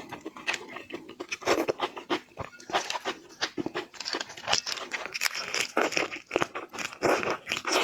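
Close-miked eating sounds: irregular wet chewing, smacking and crunching, with crackling and tearing like shellfish being bitten and pulled apart.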